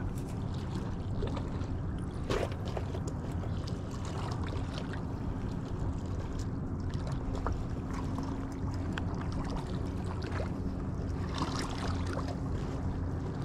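Vehicle engine running at a steady speed, a low even drone with a sharp knock about two seconds in.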